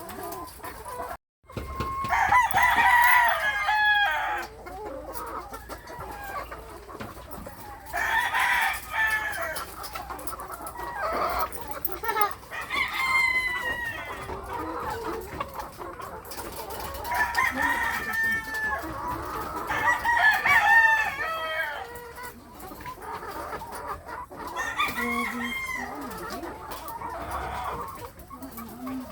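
Chickens: loud crowing calls come about seven times over, with steady clucking underneath. The sound cuts out briefly about a second in.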